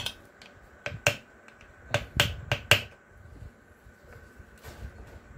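A steel pick clicking against the steel-cased seal and barrel of a small hydraulic cylinder as the seal is being pried out: a quick run of sharp metal clicks, most of them in the first three seconds, then quieter handling.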